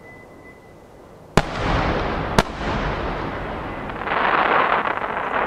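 A pair of 12-inch aerial firework shells bursting: two sharp booms about a second apart, each trailing into a long low rumbling echo. About four seconds in, a dense crackling swells for roughly two seconds as the shells' glittering stars burn out.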